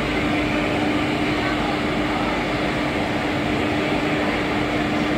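Stationary electric locomotive running idle: a steady, even machinery whir with one constant hum held underneath.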